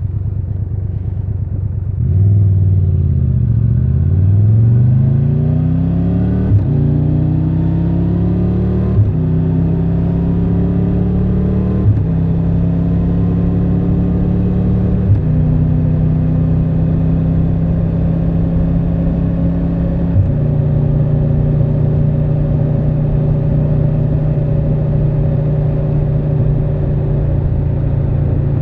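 Triumph Tiger 1200 Rally Pro's inline-three engine pulling away with rising pitch, then shifting up through the gears. A short click and a step in the engine note come at each of five gear changes, about every three seconds, before it settles to a steady cruise.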